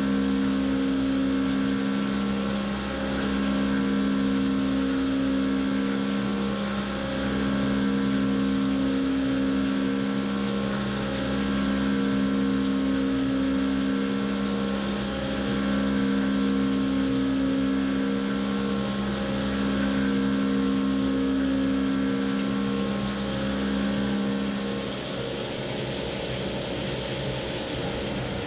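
Syil X7 CNC mill cutting a 1/2-13 internal thread in 1018 steel with a half-inch four-flute Harvey Tool thread mill, flood coolant spraying. A steady cutting hum with a tone that breaks off and returns about every four seconds; the cutting stops near the end.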